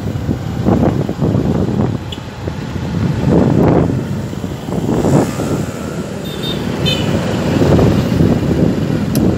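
Wind buffeting the microphone on a moving motor scooter, a gusty rushing that swells and fades, with the scooter's engine and road traffic underneath.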